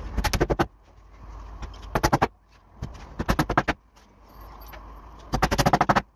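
Claw hammer driving nails into wooden staircase boards: four bursts of quick blows, each about half a second long, with short pauses between.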